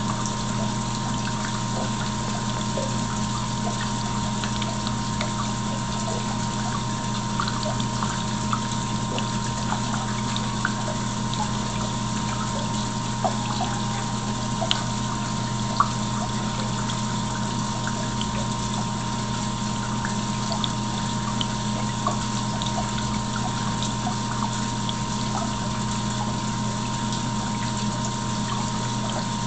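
Aquarium pump running with a steady hum and water trickling, with faint scattered ticks and one sharper tick about halfway through.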